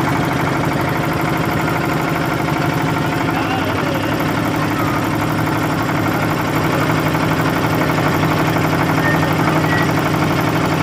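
Motorboat engine running steadily at an even pitch, with no change in speed.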